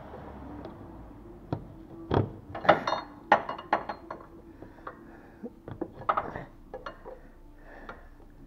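32 mm open-end spanner clinking and knocking against the oil filter cap and the surrounding metal as the cap is worked loose a little at a time. It is a scattered series of sharp metallic clicks, busiest about two to four seconds in and again around six seconds.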